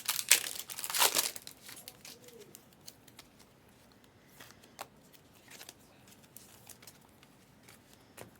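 Plastic trading-card pack wrappers crinkling and tearing open for about the first two seconds, followed by soft scattered clicks and rustles of cards being handled and flipped through.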